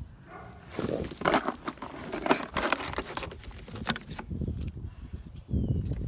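Metal jingling and clinking: a dense run of quick small rattles, easing into lower, duller handling noise near the end.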